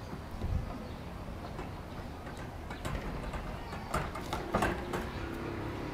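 Sliding door of an old streetcar being pushed along its track by hand, with a low rumble and several knocks, the loudest about four and a half seconds in.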